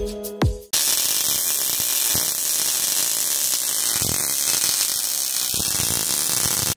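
The tail of electronic intro music, cut off under a second in by a steady buzzing hiss that holds at an even level throughout.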